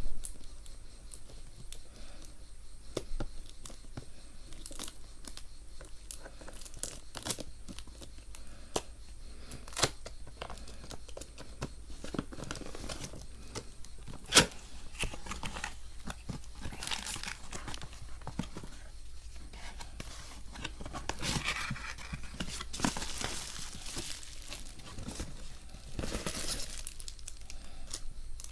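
Packaging being torn and crinkled by hand, with scattered sharp clicks and taps from handling; the loudest click comes about halfway through, and the rustling grows denser in the last third.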